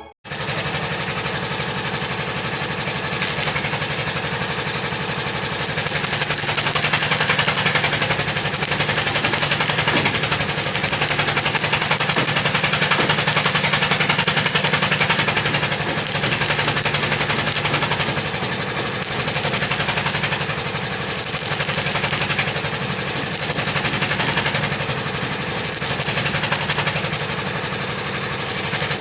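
Steady, loud metalworking machine noise: a dense, rapid crackle over a constant low hum, swelling and easing in level.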